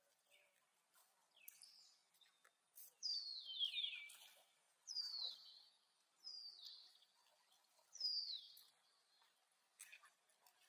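Four short high-pitched chirping calls, each sliding down in pitch, spaced a second or two apart, with a few fainter chirps and clicks between them.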